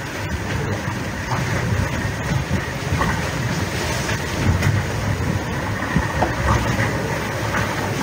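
IMOCA 60 racing yacht under way at sea: a steady low rumble of the hull rushing through the waves, with wind buffeting the microphone.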